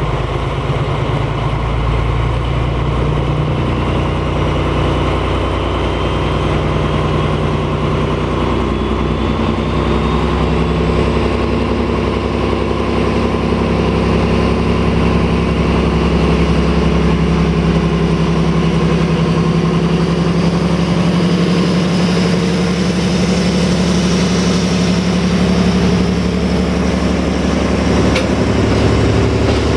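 MÁV class M41 diesel-hydraulic locomotive's V12 diesel engine running steadily at close range. Its note and loudness rise a little about a third of the way in as it takes some throttle.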